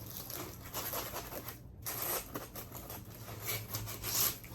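Packaging being rummaged through and pulled out of a box: irregular rustling and scratching, with a short pause about a second and a half in.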